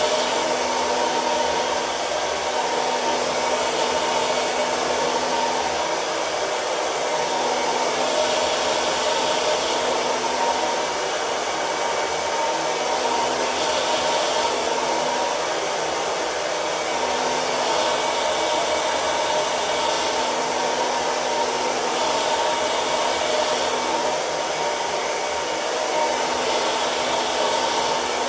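BaByliss 1800 W hair dryer running steadily, blowing while it dries, with a constant whine over the rush of air.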